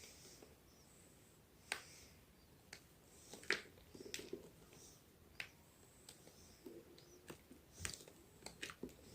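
Homemade gym chalk crunching and crumbling: quiet, irregular sharp crackles and crunches, roughly one to two a second, with a few louder snaps.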